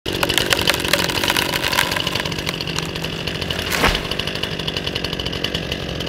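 Chainsaw running steadily while a tree is felled, with crackling and a single heavy thud a little under four seconds in as the felled trunk comes down.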